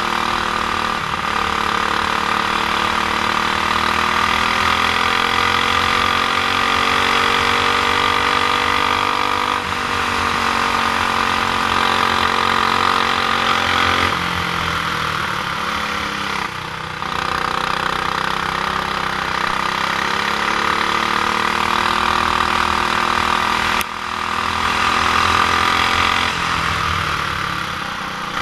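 Honda GX390 single-cylinder four-stroke kart engine running under way, its pitch rising and falling as the kart speeds up and slows, with a couple of brief drops in level.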